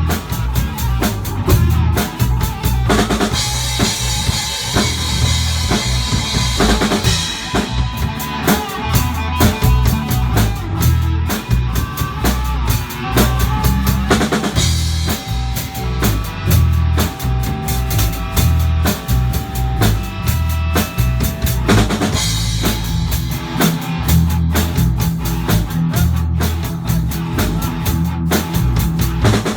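Band playing live, the drum kit loudest: a fast kick-and-snare beat with strong bass underneath. Cymbals wash over it for a few seconds at a time, and held notes sound in the middle stretch.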